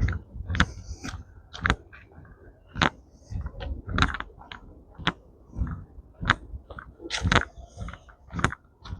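Walking footsteps on a forest trail, about two uneven steps a second.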